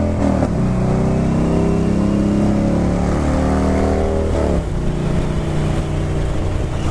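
Harley-Davidson Dyna Low Rider's V-twin engine running under way as the motorcycle rides along, its note dropping sharply twice, shortly after the start and about four and a half seconds in, as with upshifts.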